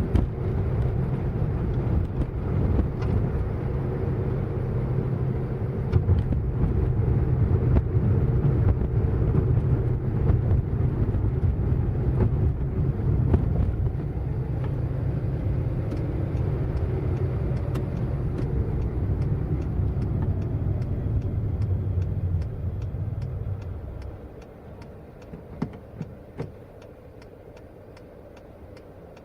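A car driving: steady engine and road rumble that dies down about 23 seconds in, leaving a quieter hum. Faint regular ticking, about two a second, runs through the later part and stands out once the rumble drops.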